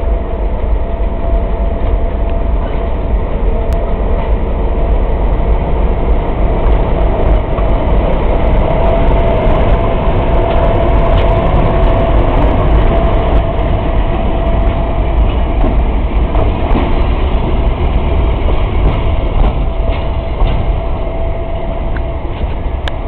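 GE U25B diesel locomotive's 16-cylinder FDL engine running, a loud steady low rumble with a steady whine over it.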